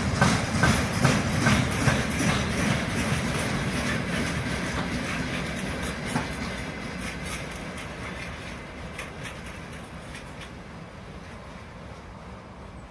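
Freight wagons' wheels clicking over the rail joints with a low rumble as the tail of the train passes and moves away, the sound fading steadily.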